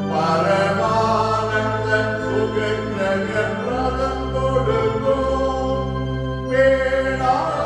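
Hymn singing with musical accompaniment: voices holding long notes over a steady low instrumental line.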